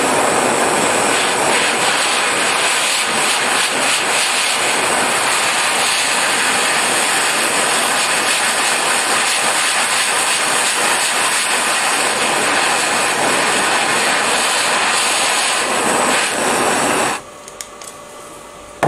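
A blow lamp's flame burning steadily against a ceramic catalytic-lamp stone, heating it red-hot. Near the end the flame is shut off suddenly.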